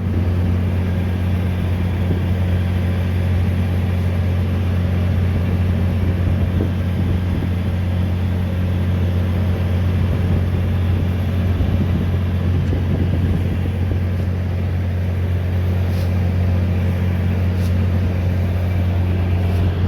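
Combine harvester running steadily at working speed, a constant low drone with no change in pitch.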